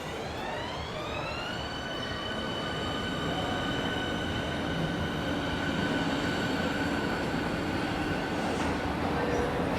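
Train running on the rails with a continuous rumble. A whine rises in pitch for about a second and a half, then holds steady.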